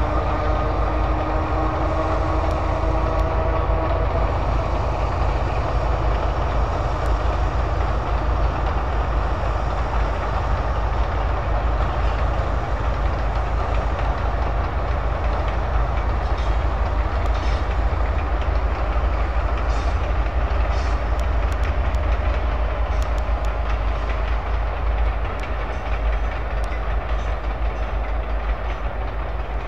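Diesel-hauled train passing: the locomotives' engines run with a steady rumble and the coach wheels click over the rail joints as the train goes by. A set of steady tones dies away about four seconds in.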